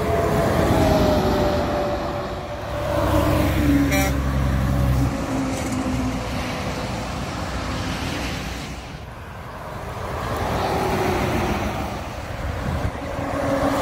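Heavy diesel trucks passing on a highway one after another, first an International 8200 and then a Peterbilt 379: engine hum and tyre noise swell and fade as each goes by.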